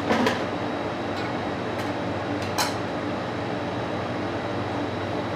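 Steady hum of ventilation in a butcher's workroom, with a few light knocks as a rolled lamb shoulder is handled on a wooden butcher's block. The loudest knock comes right at the start and another about two and a half seconds in.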